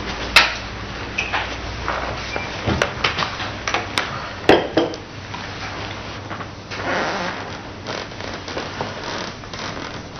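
Scattered knocks, clicks and rustling from people moving about a meeting room and settling into chairs at a conference table, with a softer rustle about seven seconds in.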